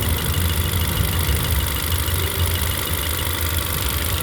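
Honda City car engine idling steadily, with a faint, fast, even ticking over the low hum; the engine is being checked for a misfire.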